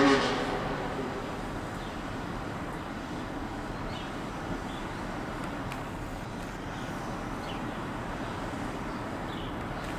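A car engine revving as it passes, loudest right at the start and fading away within the first second, then steady road traffic noise.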